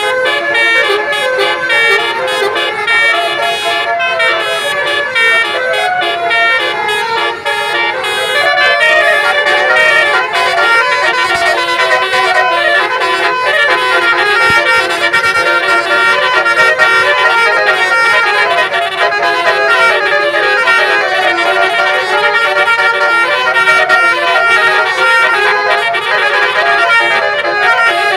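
Indonesian bus 'telolet' multi-tone horn playing a continuous melody, its notes changing in quick steps without a break.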